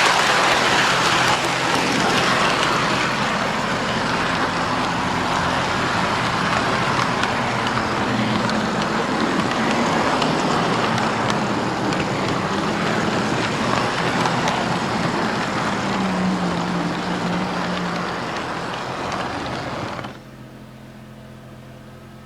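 O-gauge model train with two coupled diesel locomotives running over plastic Fastrack track: a steady rumble of wheels and motors that falls away sharply near the end.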